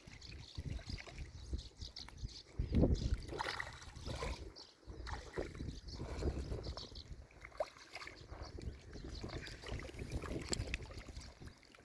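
Water lapping and sloshing against the bank, with wind rumbling on the microphone; a thump about three seconds in is the loudest moment.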